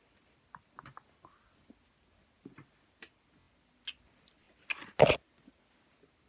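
Faint, scattered clicks and knocks of things being handled and rummaged through, with one louder double sound about five seconds in.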